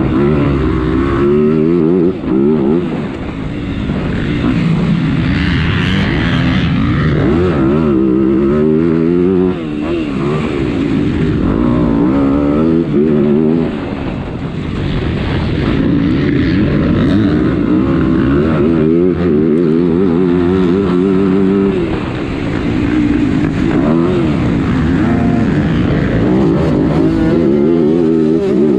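A motocross bike engine heard from on board during a race, revving up and down over and over as the rider opens and closes the throttle. The revs drop briefly several times, then climb again.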